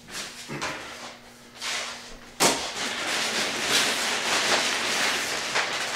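Clear plastic wrapping bag rustling and crinkling as it is pulled up off a computer tower case. It begins with a sharp crackle about two and a half seconds in and goes on steadily after faint handling sounds.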